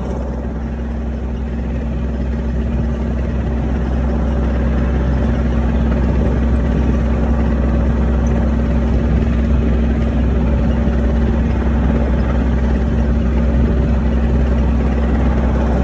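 Skid-steer loader's diesel engine running steadily as the machine drives along, a constant drone that grows slightly louder in the first few seconds.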